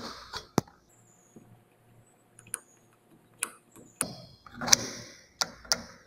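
Sharp metal clicks and knocks from a Nardini Mascote lathe's automatic-feed lever as its newly machined pin is worked into place. A few clicks come at the start, then a quiet gap of about two seconds, then a cluster of clicks with some handling rustle.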